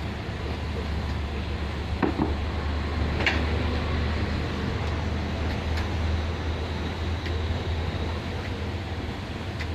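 A 250 kg animal-feed mixer running with a steady low hum, with a few sharp ticks or knocks scattered through it.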